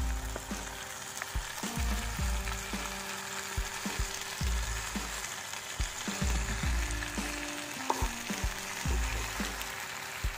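Chicken drumsticks sizzling in oil and Coca-Cola sauce in a pan over a wood fire, with a steady hiss. A spatula and a knife click against the pan now and then as the pieces are turned.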